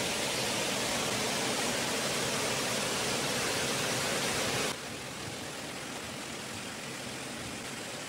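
Stream water rushing over a rocky cascade: a steady, hissing wash of white water. About two-thirds of the way through it abruptly turns quieter and duller, then carries on steadily.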